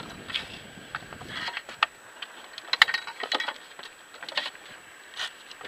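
Scattered light clicks, taps and knocks of a freshly caught sheepshead and fishing gear being handled on a boat deck, the sharpest a little under three seconds in.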